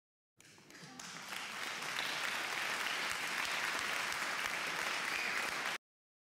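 Audience applauding, swelling over the first second or so and then holding steady before it cuts off abruptly.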